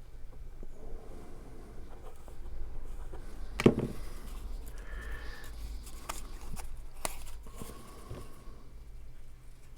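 Paper cardstock being handled and fitted by hand on a tabletop: soft rustling and scraping, with a sharp tap about a third of the way in and another about two-thirds through.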